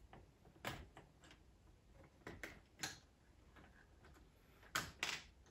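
Small sharp clicks and clacks of plastic Technic-style building parts being handled and pulled on the upturned truck chassis, about seven in all, the two loudest close together near the end.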